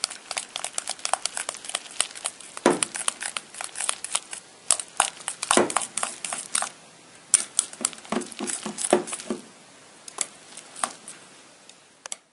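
Natto and beaten egg yolk being stirred briskly in a stainless steel bowl: a rapid, irregular run of clicks and taps of the stirring utensil against the metal, thinning out after about nine seconds.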